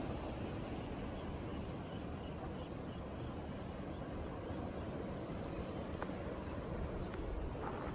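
Outdoor evening ambience: a steady low background rumble with small birds chirping in short runs a couple of times, and a few faint ticks near the end.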